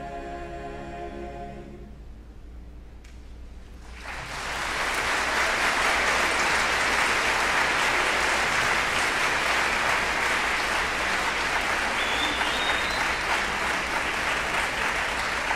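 A chamber choir holds its final chord, which stops about two seconds in. After a short pause the audience breaks into applause that swells and keeps going.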